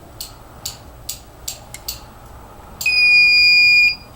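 Five light clicks, then the fire alarm control panel's trouble buzzer sounds a loud, steady, high-pitched beep lasting about a second. The buzzer signals that trouble conditions are coming back in on the panel after a reset, because a device is switched off.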